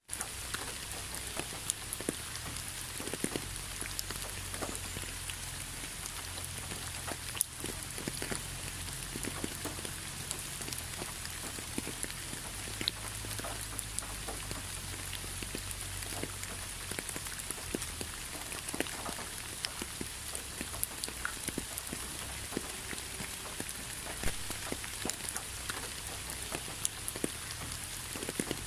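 Steady rainforest rain: an even hiss of rainfall with many individual drops ticking close by, over a low rumble.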